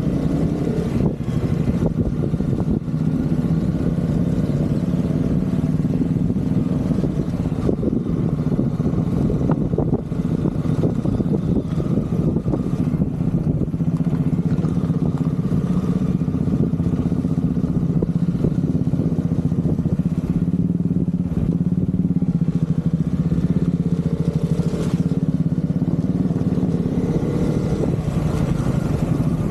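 Husqvarna Vitpilen motorcycle engine running while being ridden, holding a fairly steady pitch at an even speed.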